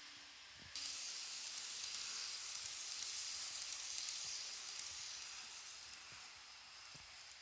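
KATO N-gauge Yuttari Yakumo model train running past close by: a hissing rush of wheels on rails with light ticks. It starts suddenly about a second in and fades away after about five seconds as the train moves off.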